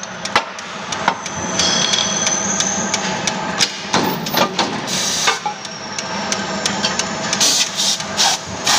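Repeated sharp knocks and clanks of metal being tapped and handled on the steel die table of a power punch press, as an aluminium profile is worked into position, over the steady hum of the running press.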